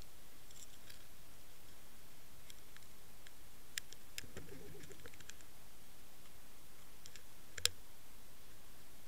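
Underwater ambience: a steady hiss with scattered sharp clicks and ticks, the loudest about three-quarters of the way through, and a brief low rumble near the middle.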